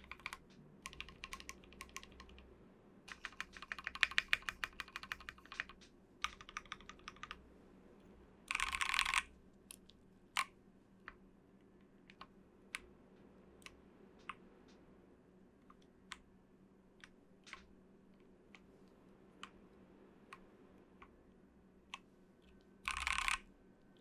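Tofu60 60% mechanical keyboard with Gateron North Pole v1 switches, keys pressed in quick runs for the first several seconds, then single keystrokes one at a time about once a second, as the modifier keys are tested. Two short dense rattles of clicks cut in, about nine seconds in and near the end.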